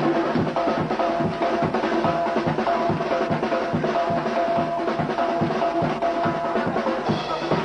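Live band music driven by a drum kit playing a busy, steady beat on snare and bass drum, with held melody notes sounding over it.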